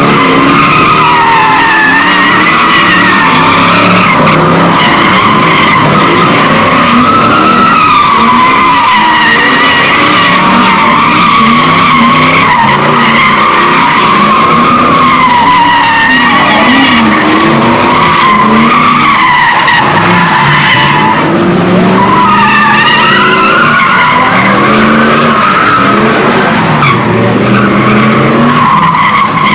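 Cars doing donuts: tyres squealing continuously, the squeal wavering up and down in pitch, over engines revving up and down hard.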